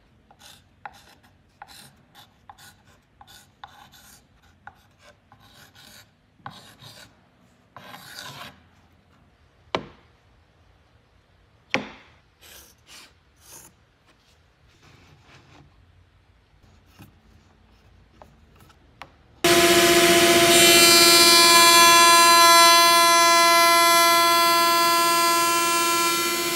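Faint clicks, taps and short scrapes of measuring and pencil-marking, then about twenty seconds in a Makita RP2301FC router mounted in a bench-top router table switches on suddenly and runs with a loud, steady high whine. A pine board is being fed across its dovetail bit.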